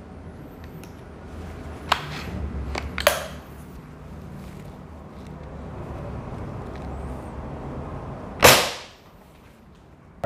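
A Snow Peak B3-3 underlever spring-piston air rifle in .22 fires once about eight and a half seconds in: a single sharp crack with a short ringing tail. A few lighter clicks come about two to three seconds in.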